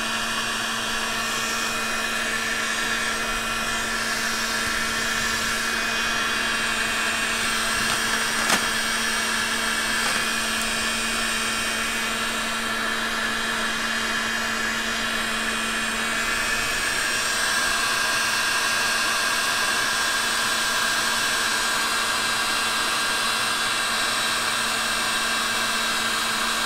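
Porter-Cable electric heat gun running steadily: an even rush of blown air over a low steady hum, heating a small lead jig head for powder painting. One light click about eight seconds in.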